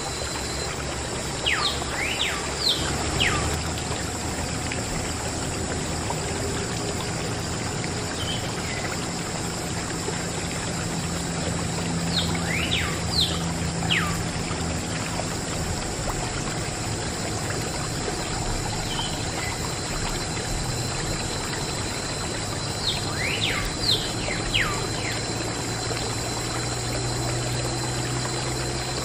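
A thin stream of water pouring and trickling steadily onto a toy tractor. A bird sings a short phrase of quick falling whistles three times, about ten seconds apart.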